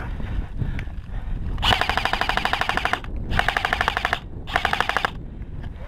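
Automatic airsoft gun fired on full auto in three bursts, a fast, even clatter of shots; the first burst is the longest and the last the shortest.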